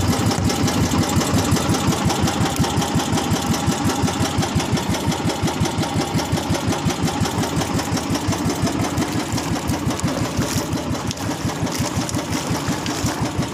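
Engine of a small fishing boat running steadily at sea, a fast, even chugging pulse.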